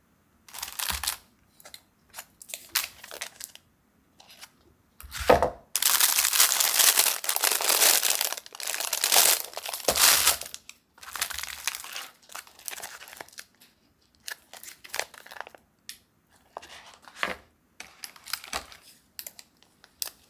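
Crinkling and rustling of clear plastic food packaging being handled and unpacked, in irregular bursts with a long stretch of dense crackling in the middle.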